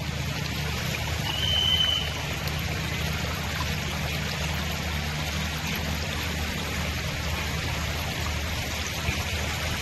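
Floodwater rushing steadily across a road surface, a continuous pouring, streaming wash. A short, high whistle-like tone sounds briefly about a second and a half in.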